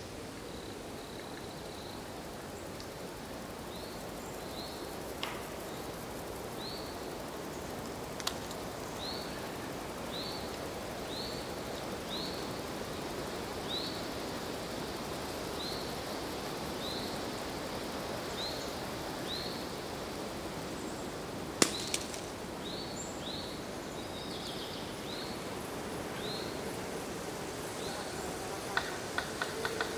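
Forest ambience: a steady low rush with a small bird repeating a short, high chirp about once a second. A few sharp clicks stand out, the loudest a little past two-thirds of the way through. Near the end a rapid tapping begins.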